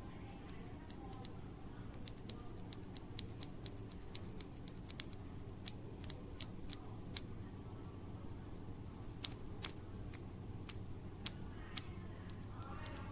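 Typing on a mechanical keyboard fitted with Gateron Milky Yellow Pro linear switches: sharp key clacks at an uneven pace, over a steady low hum.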